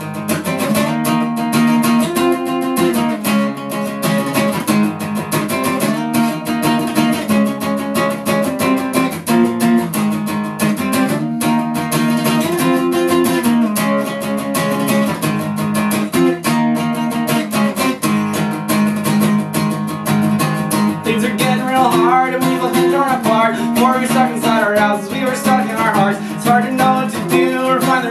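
Instrumental song intro: strummed acoustic guitar chords in a repeating pattern, with a wavering melody line joining about two-thirds of the way through.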